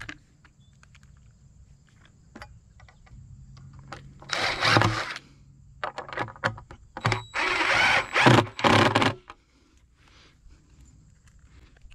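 Cordless drill/driver driving screws through a metal bracket into the end of a wooden post: one burst of about a second roughly four seconds in, then several short bursts in quick succession a few seconds later.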